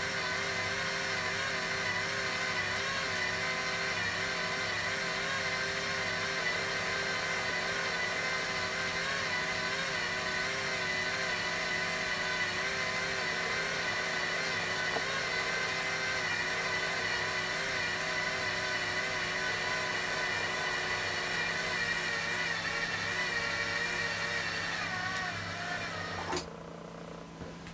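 Destination roll sign unit from a JR 211 series train, its motor winding the printed film past the destinations with a steady, slightly wavering whine over a low hum. About 26 seconds in the motor stops with a click as the sign halts on a destination, and only a fainter hum remains.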